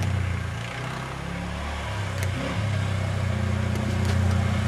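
ATV (quad) engine running off-road, easing off about a second in and then picking up again.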